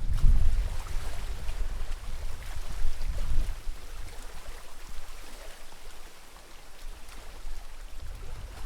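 Lake water lapping and trickling with small scattered splashes. A low rumble in the first few seconds fades out.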